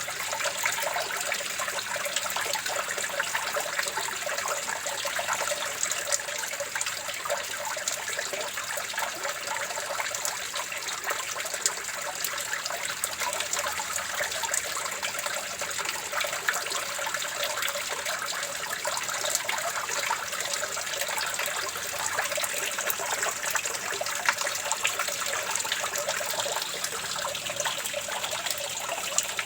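Running water trickling and splashing steadily, a fine, even crackle with little deep rumble and no change over time.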